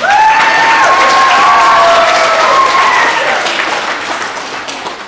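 A hall audience of children clapping and cheering, with long held 'woo' cries over the applause; it starts suddenly, then fades away over the last second or so.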